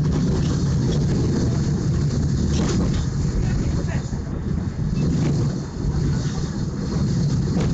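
Tram running along the street, heard from inside the car: a steady low running noise of motors and wheels on the rails.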